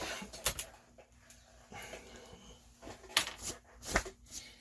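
A few sharp clicks and knocks with light handling noise between them, as glue and parts are handled and set down on a workbench.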